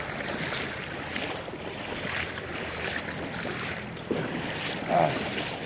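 River water running, with wind noise on the microphone.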